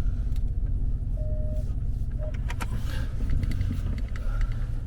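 Dodge Ram 1500 pickup driving, heard from inside the cab: a steady low rumble of engine and road noise, with a few faint clicks and a brief faint tone about a second in.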